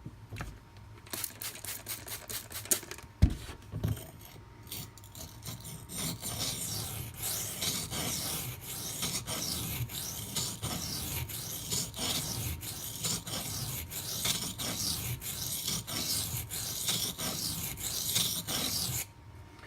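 A Maxamet steel knife blade scraping on a Gritomatic silicon carbide sharpening stone. It starts with a few separate strokes and a knock about three seconds in, then turns into quick continuous back-and-forth scraping that stops abruptly shortly before the end.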